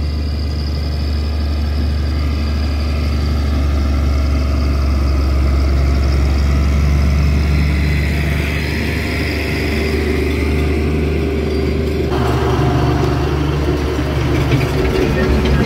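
IHC 1055 tractor's diesel engine running steadily, with a deep drone, while the tractor is out mulching. About twelve seconds in the sound changes abruptly and a noisier, rattling layer joins the drone.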